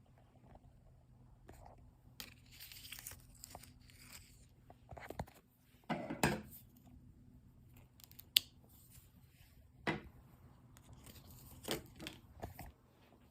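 Close handling noises: rustling and tearing-like scraping, with a few sharp knocks and one very sharp click, over a faint steady hum.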